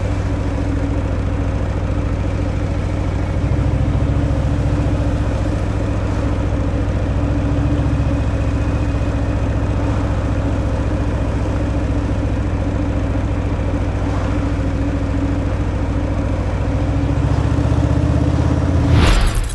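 Harley-Davidson Fat Boy's Milwaukee-Eight 114 V-twin running through its stock exhaust, heard from the rider's position. It gets louder about three seconds in and again near the end, with a short louder burst just before the end.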